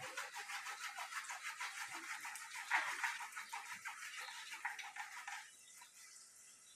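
A tomato being grated by hand on a plastic grater: quick, rhythmic rasping strokes that grow quieter about five and a half seconds in.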